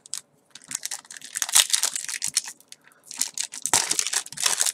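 Foil Yu-Gi-Oh! Battle Pack 2 booster pack wrapper crinkling as it is handled and torn open by hand, in two main bouts of crackling.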